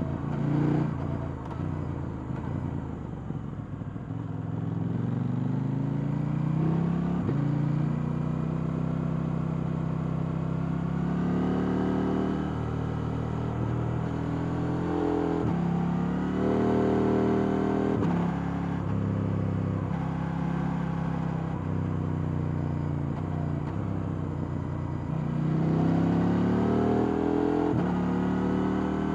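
KTM 890 Duke R's parallel-twin engine under a rider, accelerating and slowing repeatedly. Its pitch climbs in steps through the gear changes, drops sharply at the shifts, and falls away when the rider rolls off the throttle, around a few seconds in and again past the middle.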